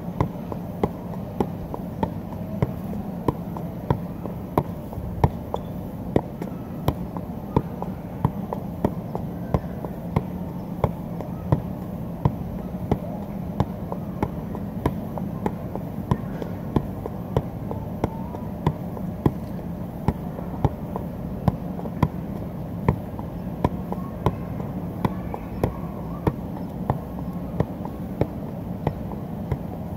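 A soccer ball being kicked up again and again in keepy-uppy juggling, each touch a sharp thud. The touches come at an even rhythm of about one and a half a second, over a steady background hum.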